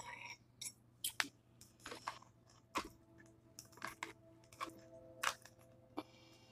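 Mukbang eating sounds: a fork clicking and scraping against a small plastic bowl and a glass bowl of greens as onions are scraped across, a string of sharp clicks, some with a short ring, the loudest right at the start, with chewing between.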